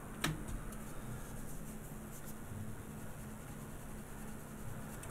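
Finer-grit sandpaper rubbed by hand over a primed vinyl figure part, a faint scratchy rubbing that smooths out a freshly sanded blemish. A sharp click comes shortly after the start, over a low steady hum.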